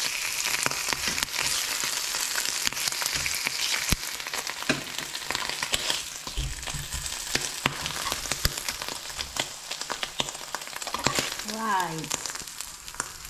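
Bacon sizzling in a hot nonstick frying pan, a steady hiss with frequent sharp crackles and clicks.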